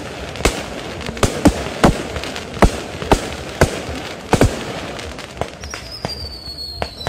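Fireworks going off: a string of sharp bangs over the first four and a half seconds, then about six seconds in a whistling firework, its whistle falling slowly in pitch.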